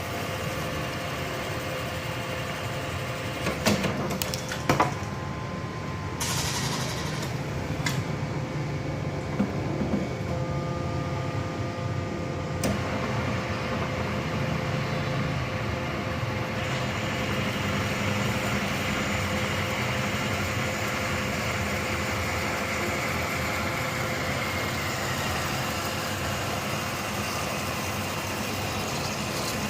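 Automatic cutting machine running with a steady mechanical hum and a few steady tones. A few sharp knocks come a few seconds in, followed shortly by a brief hiss and some scattered clicks.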